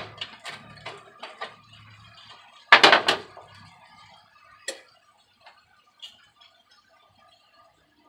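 Cookware being handled on a kitchen stove and counter: a run of irregular knocks and clatters, loudest about three seconds in, then a single knock and a few faint clicks.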